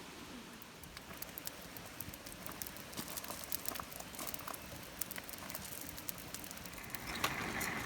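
Food frying in a pan on a camp stove, sizzling with many sharp crackling pops that come faster as it goes. The sizzle grows louder near the end.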